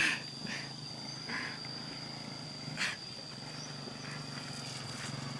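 Small motorbike engine running as the bike rides toward the camera, a steady low hum that grows slightly louder near the end, with a thin steady high-pitched whine throughout.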